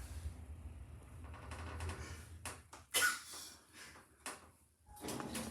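Passenger lift with a low hum, then a quick cluster of mechanical clicks and one louder knock about three seconds in, before it goes almost quiet.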